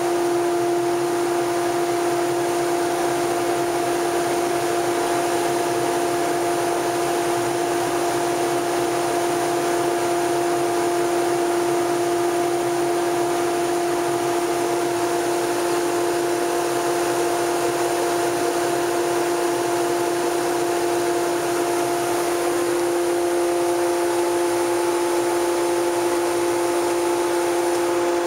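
Powder-coating spray booth running as grey powder is sprayed: a steady mechanical hum with an even hiss of moving air, and a second, higher tone joining near the end.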